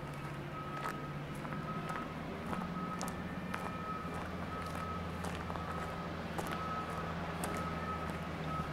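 A vehicle's reversing alarm beeping steadily, about two beeps a second, over the low steady drone of its running engine.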